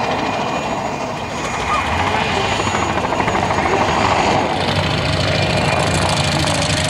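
PZL-Świdnik Mi-2 helicopter's rotor and twin turboshaft engines during a low aerobatic pass, swelling as it comes closer. After about four and a half seconds a steadier low hum takes over.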